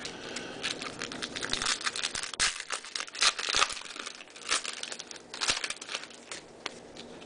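Foil wrapper of a baseball card pack crinkling and crackling as it is torn open by hand, in many short irregular crackles.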